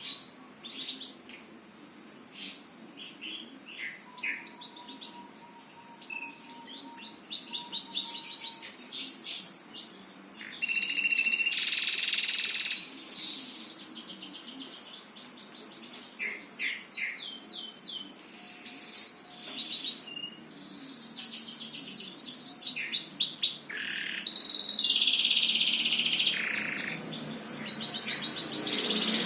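Songbird singing in long bursts of rapid, high trills with buzzy stretches, and short scattered chips in the quieter gaps between phrases.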